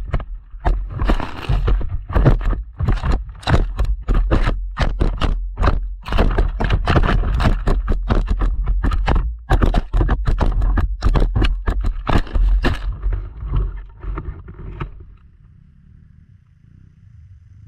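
A rapid, irregular series of knocks and scrapes over a heavy low rumble. It stops about thirteen seconds in and leaves only a faint low hum.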